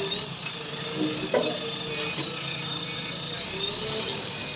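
JCB 3DX backhoe loader's diesel engine running steadily as the machine drives off with its front bucket raised, with a single sharp knock about a second and a half in.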